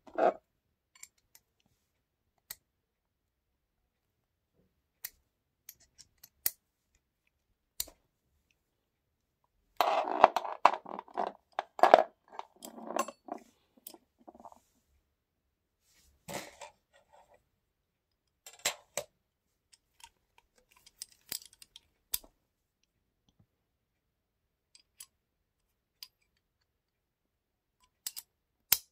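Steel socket-wrench parts (extension bars, a socket and a wood auger bit) handled and fitted together by hand into a bush drill: scattered single clicks and clinks, with a longer spell of rattling and clinking about ten seconds in and shorter ones a few seconds later.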